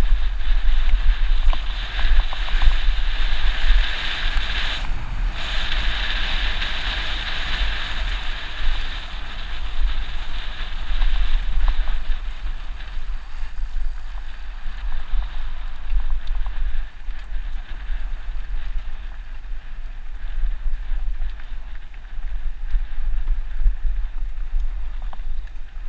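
Mountain bike rolling fast down a gravel trail: wind buffeting the action camera's microphone, with the hiss and rattle of tyres on loose gravel, loudest in the first several seconds.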